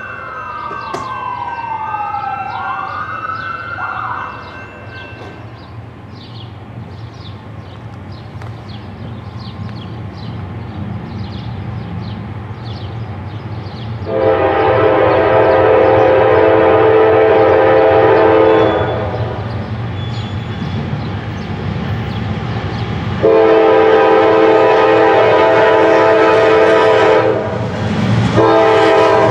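Norfolk Southern GE D9-40CW diesel locomotive approaching, its engine rumble building, and sounding its air horn for a grade crossing: a long blast of about five seconds, a second long blast of about four seconds, then another starting as the train arrives. A siren wails in the first few seconds.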